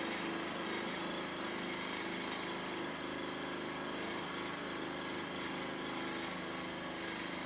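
Milling machine running steadily, its cutter milling the top face of a small cast cylinder end plate, with a steady hum and whine of several held tones.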